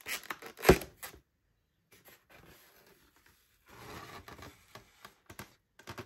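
Polystyrene foam takeaway clamshell box being unlatched and opened: crackling clicks and one sharp snap less than a second in as the tab pops free, then softer scraping and handling of the foam container around four seconds in.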